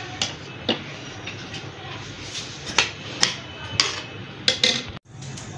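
Metal serving spoon scraping and clinking against a steel cooking pot and a plate while biryani rice is dished out: a string of irregular short clinks and scrapes.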